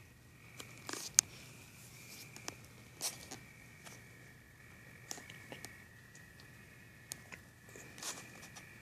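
Crickets chirring in a steady high trill, with scattered clicks and rustles over it; a sharp click about a second in is the loudest.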